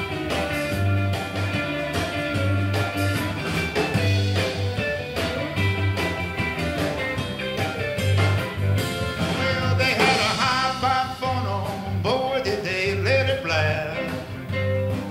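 Live rock and roll band playing an instrumental break: electric guitar lead over electric bass and a drum kit, with steady pulsing bass notes and bent guitar notes from about ten seconds in.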